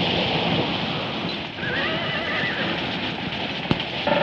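Sandstorm wind blowing steadily, with a wavering high-pitched cry lasting about a second midway and a single sharp click near the end.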